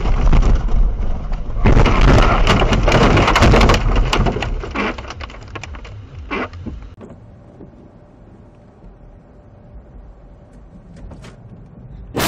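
Car ploughing off the road into deep snow: a heavy rumbling rush with many sharp cracks and knocks as the car and snow collide, lasting about four seconds, then dying away to a quiet low rumble with a few small ticks.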